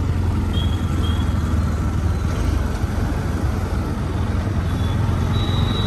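A two-wheeler's engine runs in a steady low drone, with wind and road noise, heard while riding along.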